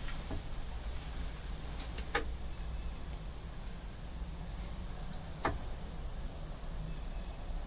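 Steady high-pitched insect trilling, such as crickets, with a few faint clicks.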